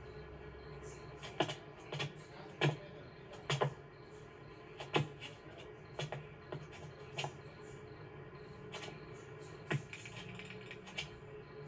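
A series of irregular sharp clicks and knocks, some ringing briefly, over a steady low hum.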